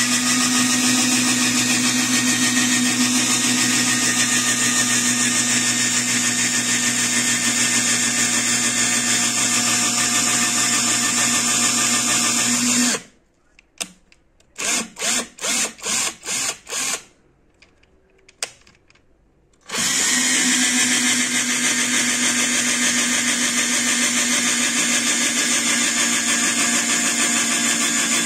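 Electric drill boring into a white plastic chair leg, its motor running steadily. About halfway through it stops, gives six or so quick short bursts and then one more, falls silent briefly, and runs steadily again for the rest.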